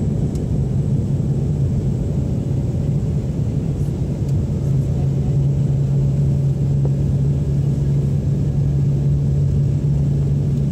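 Steady vehicle rumble with a constant low hum, which grows stronger a few seconds in.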